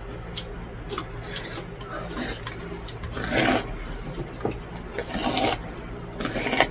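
A man slurping cold buckwheat noodles (naengmyeon): three hissy slurps, each about half a second long, in the second half. Before them come a few light clicks of metal chopsticks on a steel bowl.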